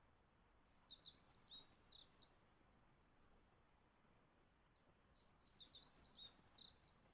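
Small songbird chirping faintly in two short bouts of quick, high chirps, one early and one about five seconds in.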